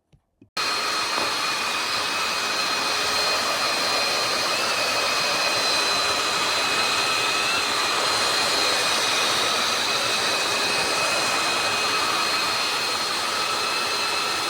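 Tineco Floor One S5 Steam wet-dry vacuum running, a steady motor whine with a few high steady tones; it cuts in abruptly about half a second in and holds at a constant level.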